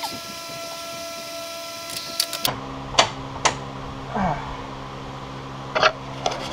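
Steady mechanical hum that drops abruptly to a lower pitch about two and a half seconds in. Over it come a few sharp metallic clicks and knocks as the front hub and drive axle are worked into place.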